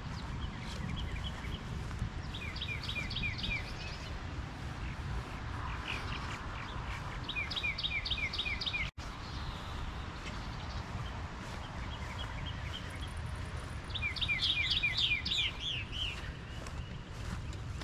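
A songbird singing runs of quick, evenly repeated downslurred notes, three runs spaced several seconds apart, over a steady low rumble of outdoor background noise. The sound cuts out for an instant about halfway through.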